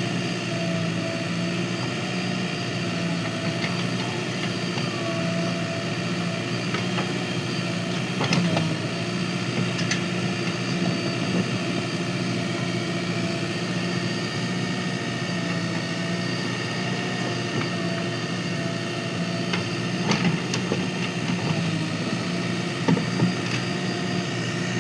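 Diesel engine of a JCB 3DX backhoe loader running steadily, with a few short knocks scattered through.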